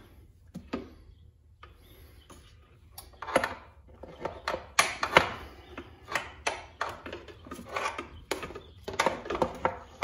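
Motorcycle rear wheel being wiggled and jiggled into the swingarm by hand while the axle and brake caliper are lined up, its metal parts knocking and clattering. There are a few light clicks at first, then from about three seconds in a run of irregular knocks and clunks.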